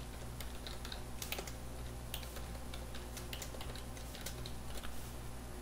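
Typing on a computer keyboard: a run of light, irregular key clicks, over a faint low steady hum.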